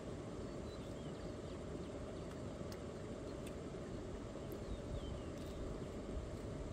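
Steady low rumbling outdoor background noise, with a few faint high chirps and light clicks.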